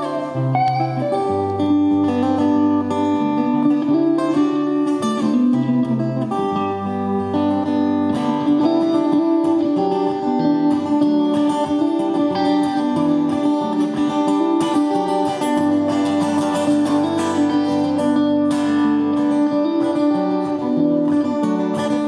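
Two guitars, one acoustic and one electric, playing an instrumental passage together, with strummed chords and picked notes.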